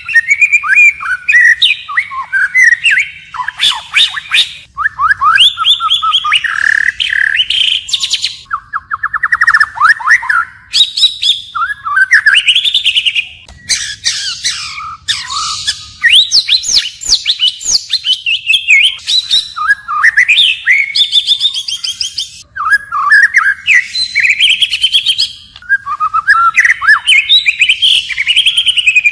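White-rumped shama singing loudly: a varied song of whistled phrases, fast trills and slurred notes, changing phrase after phrase with only short pauses between them.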